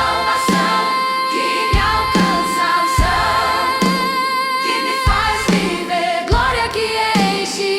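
Brazilian gospel worship song: choir-like voices singing held notes over a band, with a low drum beat recurring about once a second.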